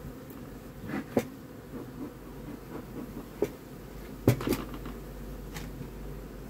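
Honeybees buzzing from an open hive in a steady low hum, with a handful of sharp knocks and scrapes as a metal hive tool pries at the wooden frames. The loudest knock comes about four seconds in.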